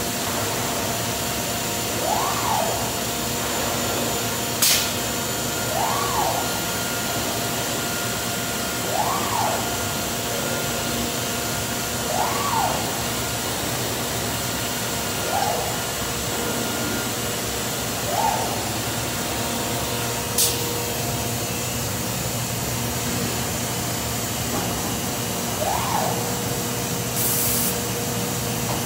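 Busellato Jet C21 CNC router running with its drill head working: a steady machine hum carries a whine that rises and falls in pitch every three seconds or so as the axis drives move the head. Two sharp clicks come through it, one about five seconds in and one about twenty seconds in, and there is a short hiss near the end.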